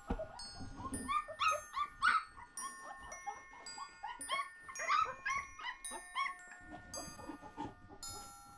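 Newborn German Shepherd puppies squeaking and whining: many short, high, rising-and-falling cries in quick succession, overlapping one another, heaviest in the middle. Soft chiming music plays underneath.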